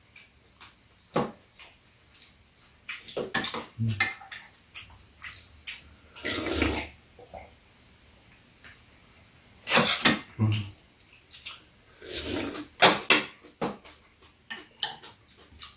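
Metal spoons clinking and scraping against bowls and cups during a meal: scattered clinks throughout, with louder, longer stretches about six, ten and twelve seconds in.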